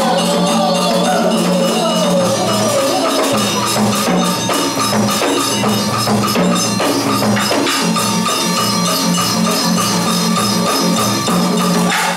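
Traditional Vietnamese water puppet theatre music: fast, busy percussion over a low sustained tone, with a gliding melody line that fades out in the first couple of seconds.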